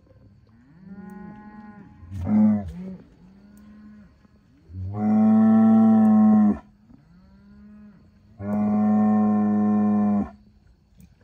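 Black Angus bull bellowing: a quieter call and a short loud one in the first few seconds, then two long, loud, steady bellows of nearly two seconds each, with low, quieter rumbling calls between them. A breeding bull calling, ready to go with the cows.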